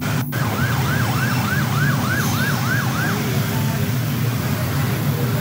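An emergency vehicle's siren yelping in fast rising-and-falling sweeps, about three a second, stopping about three seconds in, over a steady low rumble of vehicle engines.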